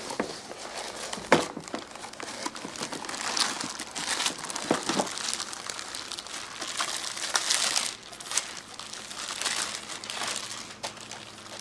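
Plastic bag crinkling and cardboard packaging rustling as a boxed amplifier is unpacked and lifted out, with a few sharp knocks from the cardboard flaps and box.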